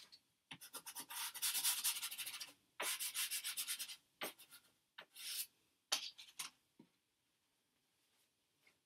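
A pastel stick rubbed back and forth on paper in quick scratchy strokes, laying brown over a yellow undertone. There are two runs of strokes lasting a second or two each, then a few scattered strokes, and they stop about seven seconds in.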